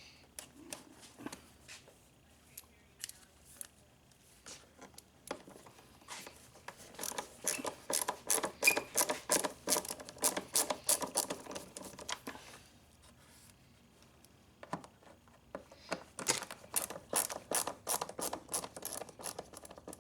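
Hand ratchet driver clicking as screws are backed out, in two runs of several seconds each at about four clicks a second, with a few scattered tool clicks between.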